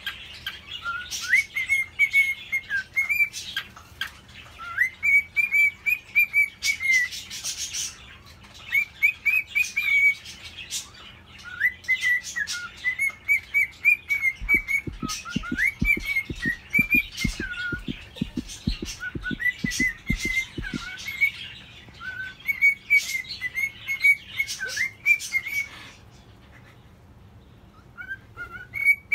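Male normal gray cockatiel singing its courtship song: repeated short whistled chirps and warbles that glide up and down, mixed with sharp clicks, with a short pause near the end. For several seconds midway, a quick run of low knocks comes at about four a second.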